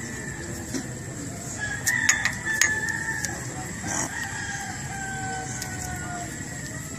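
Rooster crowing, its long final note held for nearly two seconds and sliding slightly down in pitch, with a few light clicks from wire connectors being handled.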